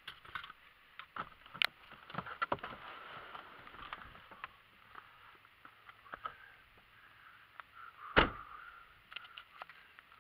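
Clicks and knocks of a vehicle door being opened and someone climbing out and moving about, with one loud thump about eight seconds in.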